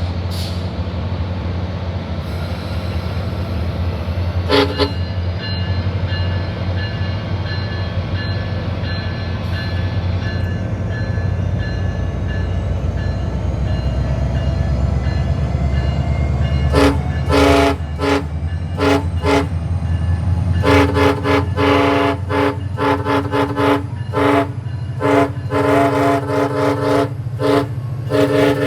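SunRail commuter train's multi-chime air horn over the steady low rumble of the locomotive's diesel engine. There is one short horn blast about five seconds in. From about seventeen seconds the horn is played in many rapid short toots in quick succession: a horn show put on by the engineer.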